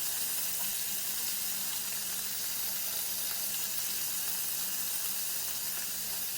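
Chicken and zucchini patties frying in a shallow layer of hot sunflower oil in a pan, a steady sizzle.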